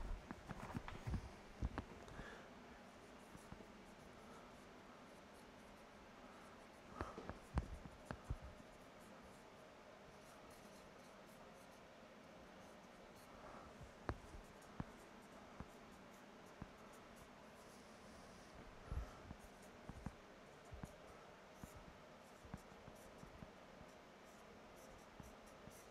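Dry-erase marker writing on a whiteboard: faint, intermittent squeaks and taps of the marker tip against the board, coming in scattered short strokes.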